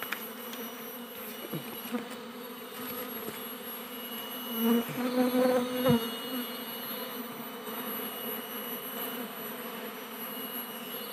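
Asian honeybees (Apis cerana) buzzing steadily around their comb as it is handled, the swarm's hum swelling louder for a second or so around the middle.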